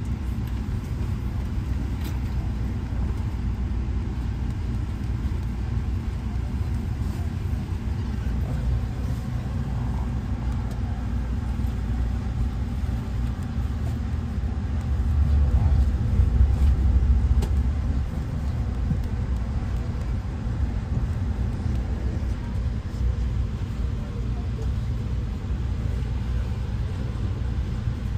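Amtrak passenger train running, a steady low rumble that swells louder for a few seconds about halfway through.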